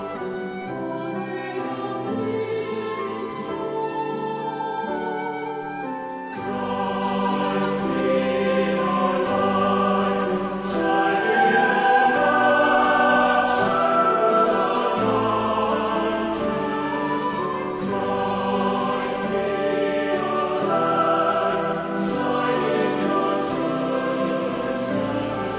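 Background music in a classical style with sung voices, steady and sustained, growing fuller and louder about six seconds in.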